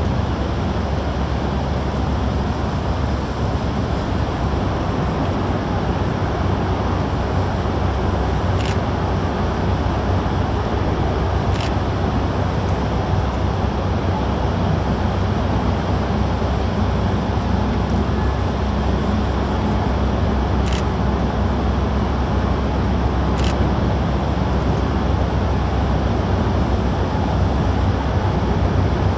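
Steady low rumble of outdoor harbourside noise, with a faint steady hum underneath and a few brief faint clicks scattered through.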